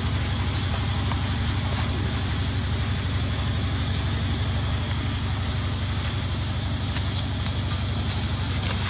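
Steady low mechanical hum under a constant high hiss.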